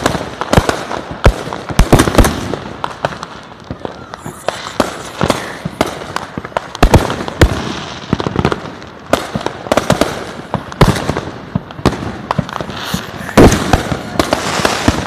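Fireworks going off one after another: many sharp bangs and pops at irregular intervals over a steady crackling background.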